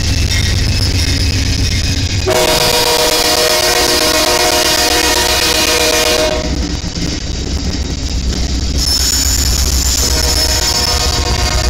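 Freight train with diesel locomotives passing close by with a steady low rumble. About two seconds in, a locomotive air horn sounds one long chord for about four seconds, and then the rumble of the train goes on.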